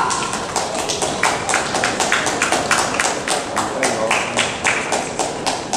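Spectators clapping in a steady rhythm, about four to five claps a second, with a voice cheering right at the start.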